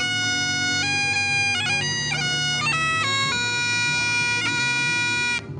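Great Highland bagpipes playing a tune over their steady drones, the melody stepping between held notes. The pipes stop abruptly near the end.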